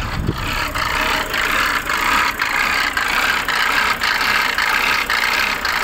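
Mercedes-Benz 250 turbo diesel five-cylinder engine idling, with a regular beat about twice a second. The uneven idle is the instability the owner wants diagnosed.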